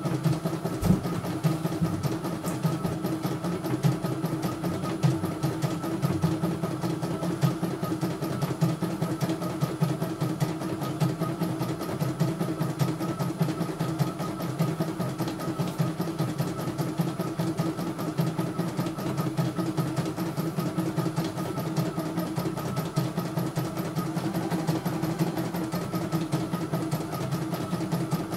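CNY E900 computerized embroidery machine stitching a design, its motor and needle running steadily with a rapid, even ticking.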